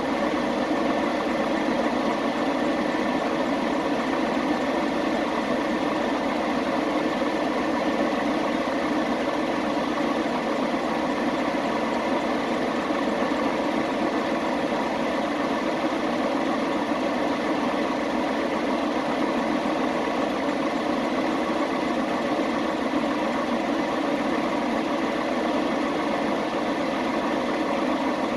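Chevy Express 3500 van's engine idling steadily.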